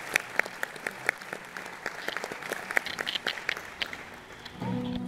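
Audience applauding, the claps thinning out. About four and a half seconds in, the ensemble starts playing, a violin among the instruments.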